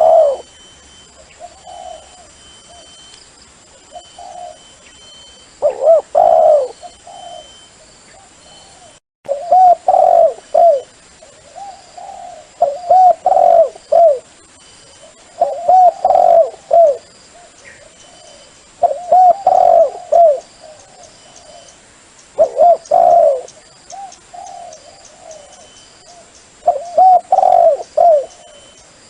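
Dove cooing: a phrase of several short coo notes repeated about every three seconds, a call of the kind played to lure wild doves in.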